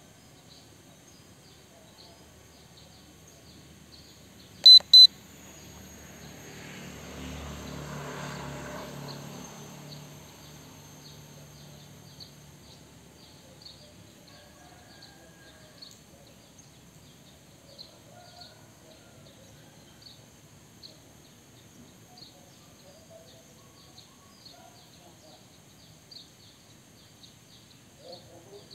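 Two short, loud electronic beeps about five seconds in. Then a vehicle passes by, swelling and fading over a few seconds, over a steady outdoor background with a faint high chirping about twice a second.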